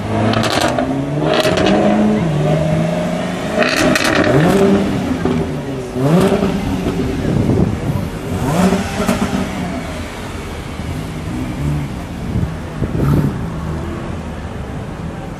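Jaguar F-Type sports car engine revving and accelerating, its pitch rising and falling several times, loudest in the first half and easing off after about ten seconds.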